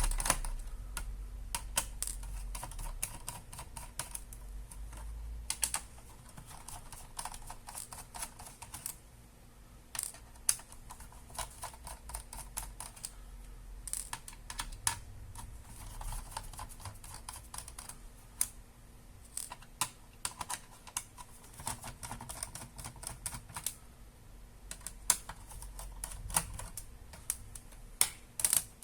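Scattered sharp clicks and light taps of plastic and small parts being handled inside an opened ASUS X551M laptop as its ribbon-cable connectors and cables are unclipped.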